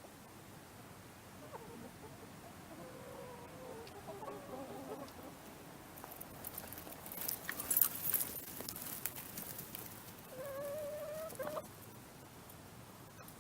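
Domestic hens clucking and calling, with one longer, steadier call about ten and a half seconds in. A burst of sharp scratchy clicks around seven to eight seconds in is the loudest moment.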